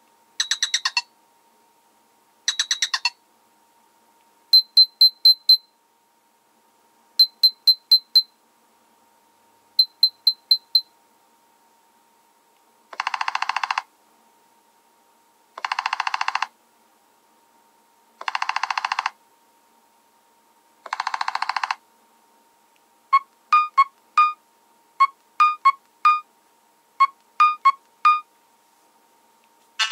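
Nothing Phone 1 ringtones and notification sounds: short glitchy electronic tones in changing patterns. First come quick runs of clicky beeps, then four buzzing bursts about two and a half seconds apart, then a scattered run of plucked beeps.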